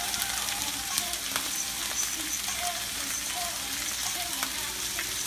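Diced potatoes sizzling in a hot skillet as they are turned with silicone tongs, with a few light clicks of the tongs against the pan.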